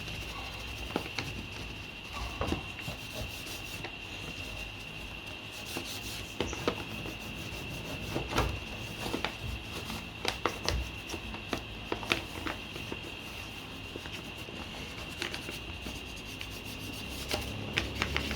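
Pencil rubbing over brown paper laid on the car's steel parcel shelf, taking an impression of the pressed stamping for a template: short scratchy strokes and taps come and go. A steady high-pitched whine sits under it throughout.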